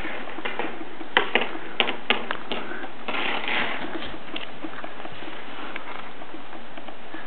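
Light taps and knocks from a toddler's plastic toy lightsaber and small footsteps on a tile floor: a quick run of sharp taps in the first few seconds, then a brief scraping rustle about three seconds in as the saber drags onto a rug, and only faint ticks after.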